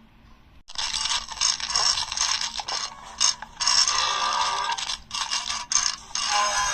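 A long, rough burp starting about a second in and lasting several seconds, broken by a few brief gaps.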